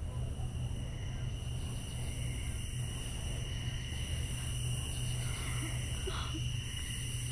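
Night ambience: insects chirring steadily in a thin high band, over a low steady hum, with a few faint short sounds about five to six seconds in.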